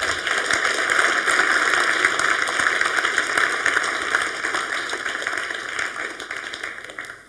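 Audience applauding, many hands clapping, strongest at the start and thinning out before it stops near the end.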